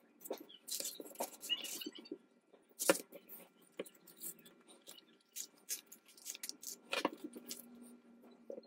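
Paper rustling and crinkling as book-page pockets and paper tags are handled, with sharp clicks about three seconds in and again about seven seconds in.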